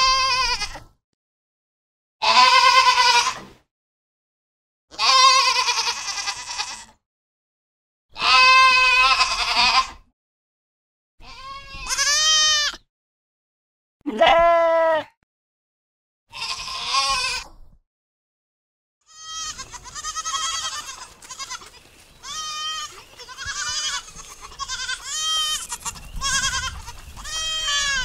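Goat bleating: seven separate calls, each one to two seconds long with silence between, then a run of shorter bleats about one a second over a faint background hiss.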